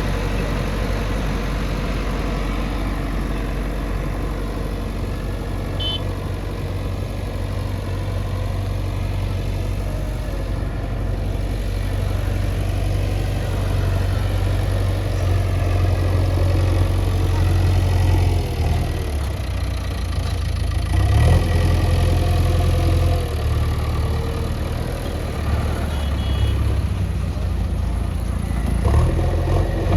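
Heavy diesel engine running steadily at low revs, its note shifting about 18 seconds in and picking up again near the end.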